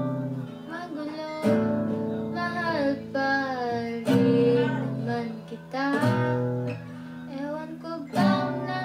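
Acoustic guitar strummed in slow chords, a new chord struck about every two seconds, with a voice singing a melody over it.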